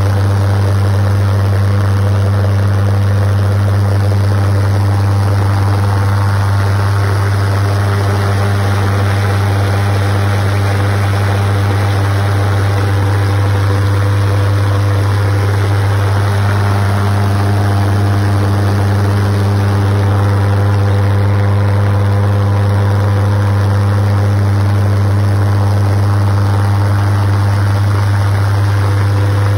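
Triple valveless (Lockwood-style) 150-pound-thrust pulsejet engine running at full output on liquid propane: a loud, steady, deep drone that holds the same pitch.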